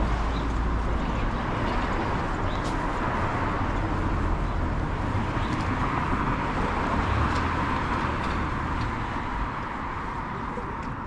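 Street traffic: a car driving past, its tyre and engine noise swelling in the middle and easing off near the end.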